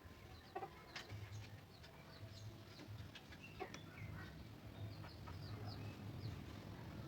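Faint background ambience: many short, high bird chirps and scattered light clicks over a low steady hum.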